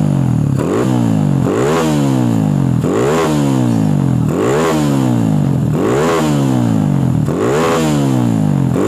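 Kawasaki D-Tracker single-cylinder four-stroke engine, heard through its stock muffler with the baffle gutted out, being blipped again and again: the revs shoot up and drop back about six times, roughly one every one and a half seconds. The revs climbing this fast on little throttle is put down to an aftermarket camshaft.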